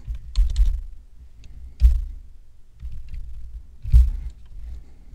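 A few slow, separate keystrokes on a computer keyboard, each a short click with a dull thump, spaced about two seconds apart.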